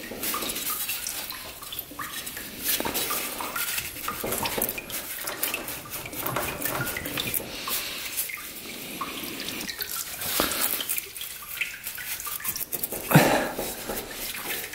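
Hand tools clicking and scraping on metal as the water pump cover of an ATV engine is unbolted and pried off, with liquid dripping and trickling. One louder clunk near the end.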